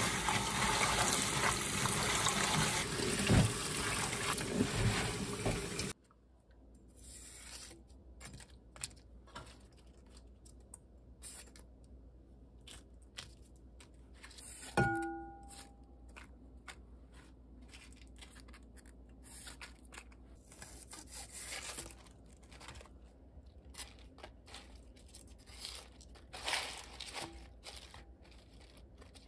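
Tap water running and splashing over bomdong (spring cabbage) leaves in a colander for about six seconds, cut off abruptly. Then faint, scattered crisp crunches and rustles of the cabbage leaves being cut and handled, with one short ringing clink about 15 seconds in.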